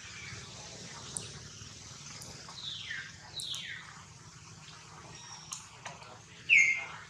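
High-pitched animal calls over a steady hiss: two falling chirps a little before halfway, then a short, loud call near the end, with scattered faint ticks.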